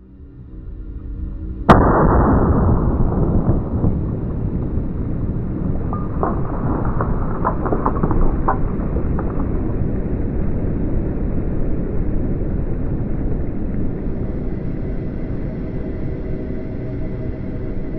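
A short swell, then one sharp, very loud bang nearly two seconds in, followed by a long low rumble with a few faint cracks in the middle, timed to a water-filled globe bursting.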